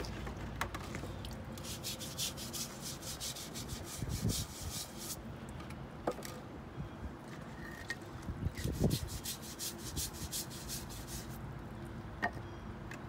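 Stiff-bristled scrub brush scrubbing a wet wooden board in two bouts of rapid back-and-forth strokes, working brightener into the freshly stripped wood. A couple of dull knocks come in between.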